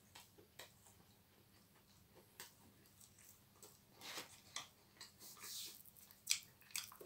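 Faint close-up chewing of food, with scattered soft clicks and crackles that are busiest in the second half and one sharper click a little after six seconds.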